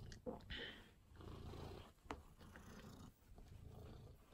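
Calico cat purring faintly, in stretches of about a second with short breaks between, plus a light click or two.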